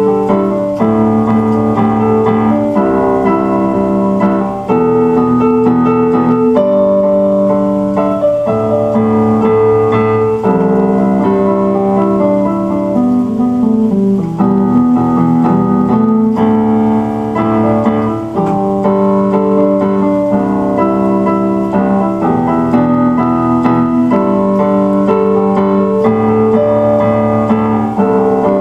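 Instrumental keyboard music with held chords that change about every two seconds.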